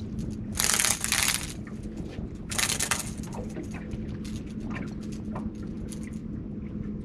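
A hooked speckled trout splashing twice at the water's surface as it is reeled to the boat and swung aboard, followed by small clicks and taps while the fish is handled. A steady low rumble of wind and water runs underneath.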